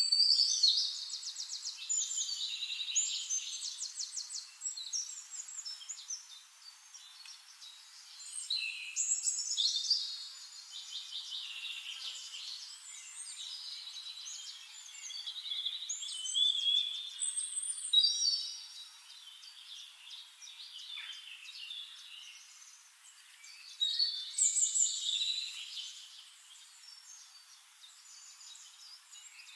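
Songbirds singing: rapid high trills and chirps in phrases a few seconds long, with quieter stretches between them.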